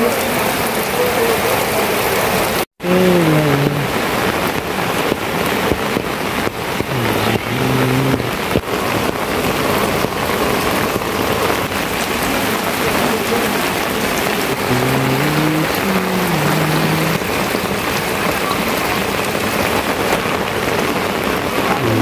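Heavy rain falling steadily, an even hiss of drops on ground and roofs.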